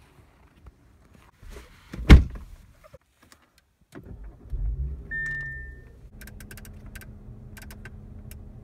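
A car door shuts with a loud thud. About two seconds later an Audi sedan's push-button start cranks the engine, which catches with a rising surge. A short chime sounds, and the engine settles to a steady idle while a run of light clicks comes from the dashboard controls.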